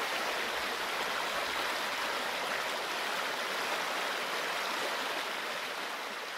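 Small mountain stream running over rocks in little cascades: a steady rush of water that fades a little near the end.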